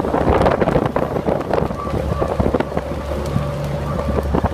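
Vintage trolley car running fast on the rails with the cab window open: a steady low hum and whine under dense rattling and clatter, with wind rushing in.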